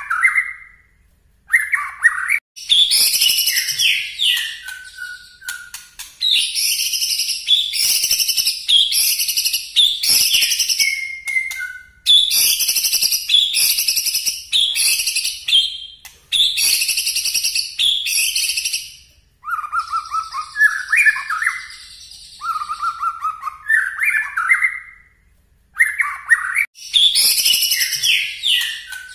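White-rumped shama (murai batu) singing loudly. Short whistled phrases alternate with long runs of rapid, sharp, high-pitched notes, the 'nembak' (shooting) song. There are brief pauses about a second in and near the end.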